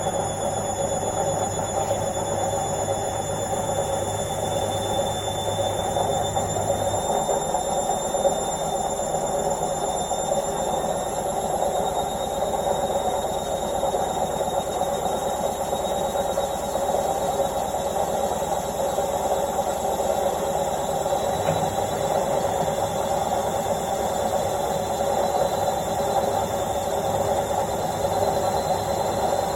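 Washing machine drum in its spin cycle at its 1200 rpm top speed: a steady rushing drone with a thin high-pitched whine over it that creeps slightly up in pitch, and a low hum that drops away about seven seconds in.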